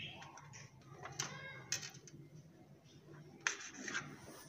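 Kitchen knife cutting the crust off a slice of white bread on a plastic tray: quiet scraping with a few light clicks, the loudest near the end.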